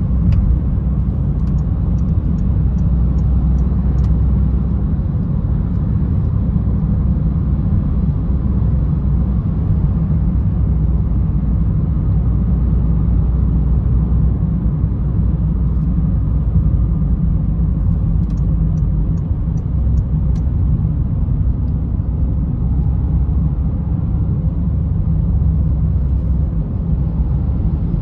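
Steady low rumble of a Citroen C3 on the move, heard inside the cabin: its 1.4 VTi four-cylinder petrol engine running under road and tyre noise.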